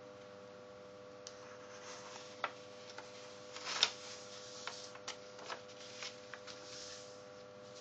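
A sheet of white paper being handled and folded in half into a triangle: rustling and crinkling with a string of short crackles. The loudest rustle comes a little before the middle, as the sheet is bent over, and lighter clicks follow as the fold is pressed flat.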